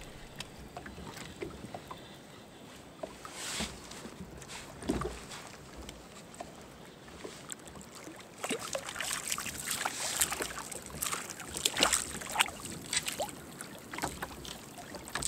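Sea water splashing and slapping against a kayak while a hooked sea bass is drawn to the surface alongside. There are a few isolated splashes at first, and the splashing becomes busier and louder about halfway through.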